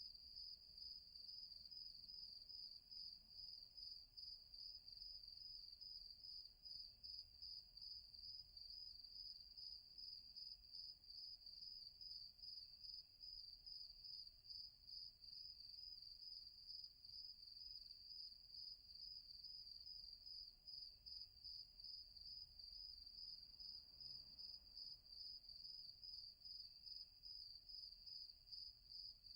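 Crickets chirping at night in one steady, high-pitched trill that pulses evenly several times a second.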